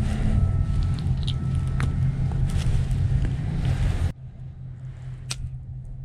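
A steady low rumble with small clicks of wire and connector handling over it, cutting off abruptly about four seconds in. A quieter hum follows, and a single sharp click a second later as a butane lighter is struck to heat a solder-seal connector.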